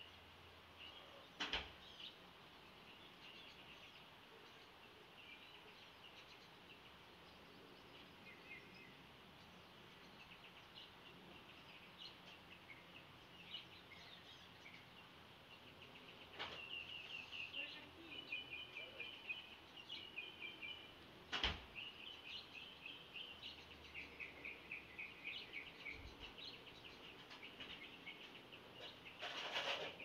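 Faint dawn chorus of small songbirds: scattered chirps, then a busier run of quick trills and twitters through the middle. A few sharp clicks stand out, one near the start and the loudest about two-thirds of the way in.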